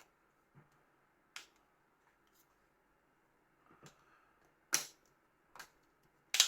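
A handful of short, sharp plastic clicks and taps at irregular intervals, the two loudest near the end, from the parts of a Nokia flip phone being handled and fitted together during reassembly.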